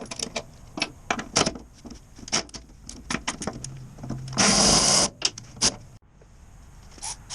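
Clinks and knocks of metal workshop tools being handled, with a short burst of a power tool, about half a second long, a little over four seconds in.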